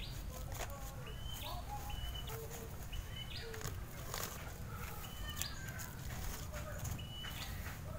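Crinkling of a black plastic polybag and loose soil scraping as hands press potting soil around a transplanted seedling, many short crackles. A bird chirps repeatedly in the background, a short high call every second or two.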